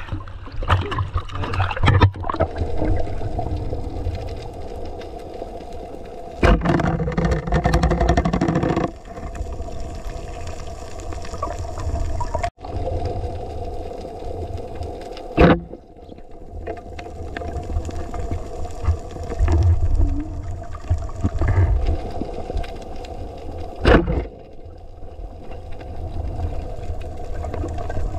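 Underwater sound: a steady motor drone over a low rumble, with a few sharp knocks and a louder noisy stretch of water sound about a quarter of the way in.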